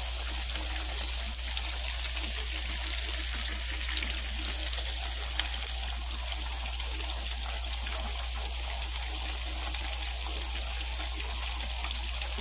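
Breaded buffalo fish fillets deep-frying in hot oil: a steady sizzle full of fine crackling pops.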